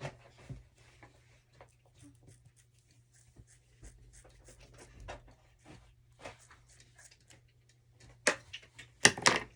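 Faint small handling noises, light clicks and rustles, with a few louder sharp clacks about eight to nine seconds in.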